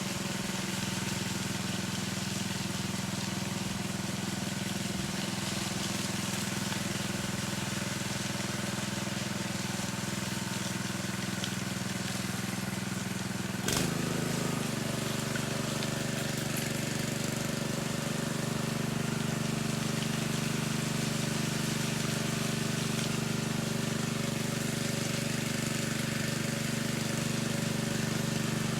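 An engine runs steadily. About 14 s in, a sharp click is followed by a slightly louder engine hum with a different pitch.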